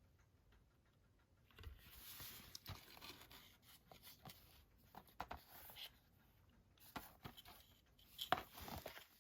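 Faint rustling and light scraping of a cardboard Blu-ray slipcover being handled, with a few soft clicks.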